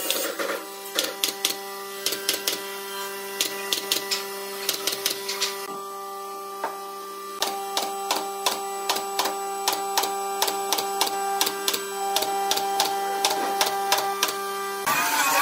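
Pneumatic nail gun driving nails into pine boards: quick runs of sharp shots, a few a second, thinning out briefly about halfway through.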